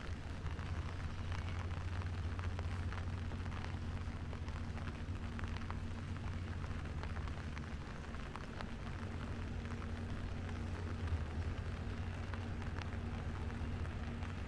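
Rain falling steadily, with many small drops ticking in a fine patter, over a steady low hum.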